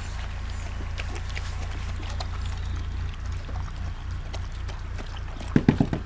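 Huskies eating soaked kibble from metal bowls: wet slurping and chewing with scattered small clicks, over a steady low rumble. Near the end comes a brief loud burst of a few quick low pulses.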